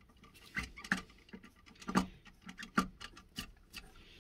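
Small plastic clicks and taps from a Fluidmaster universal toilet handle's lever being pushed on and fitted inside the tank: irregular clicks, a few a second.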